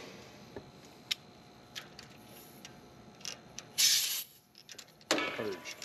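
Short hiss of R-410A refrigerant vented about four seconds in as the charging hose is purged of air at its fitting, with a few light metallic clicks from the hose fitting before it and a second, rougher burst of noise near the end.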